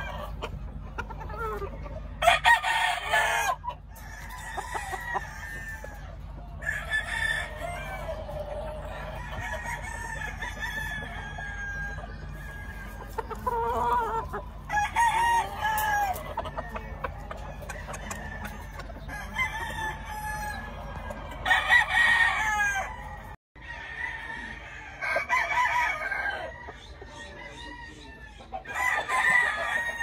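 Gamefowl roosters crowing in turn, a loud crow every few seconds, with clucking in between.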